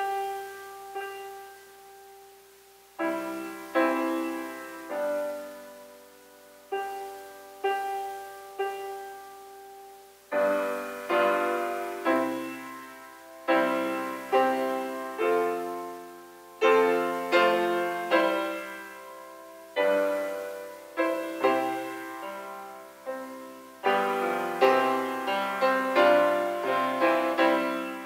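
Solo grand piano playing slowly, with single notes left to ring at first, then fuller and louder chords from about ten seconds in.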